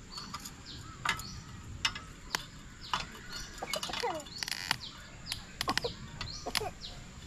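Birds chirping in short, falling notes. Over them, a series of sharp metallic clicks and clinks from the chain and hooks of a camp tripod as a lantern is hung from it.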